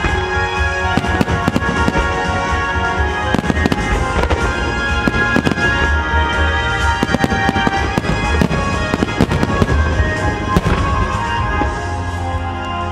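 A starmine barrage of aerial firework shells bursting over loud accompanying music. Many sharp bangs come in quick succession from about a second in and thin out near the end.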